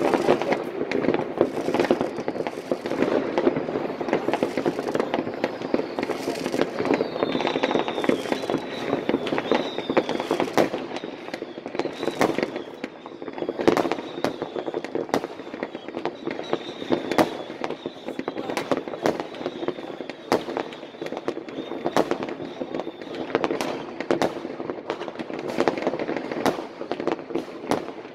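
Many fireworks going off at once across a town: a dense continuous din of crackling and distant bangs, cut every second or so by sharper, louder bangs. Faint high whistles run through the middle.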